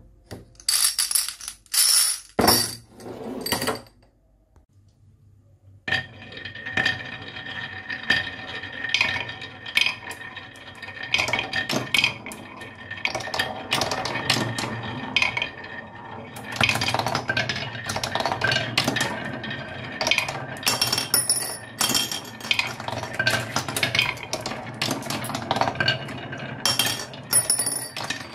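Marbles clicking and clacking through a toy marble run: a few sharp clicks, a short pause, then from about six seconds a dense, continuous clatter of many marbles rolling and knocking along the track.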